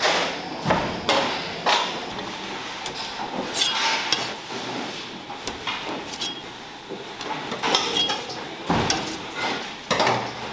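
Irregular knocks and clatter of stainless steel kitchenware, some with a short metallic ring: steel trays and bowls being handled on a steel worktable.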